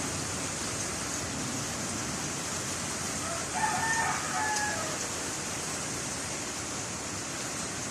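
A rooster crowing once, a little before the middle, over a steady hiss of background noise.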